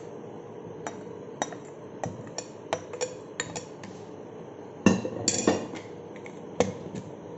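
A string of sharp clicks and knocks from a blender jar and glass bowl being handled, over a steady low hum. The loudest knocks come about five seconds in and again near the end. The blender motor is not running.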